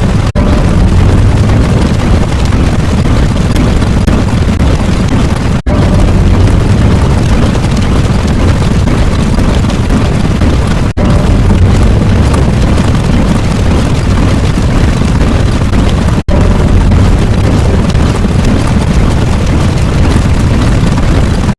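Loud, continuous rumbling explosion sound effect, heavy in the low end, repeated in loops of about five seconds with a brief dropout between each repeat.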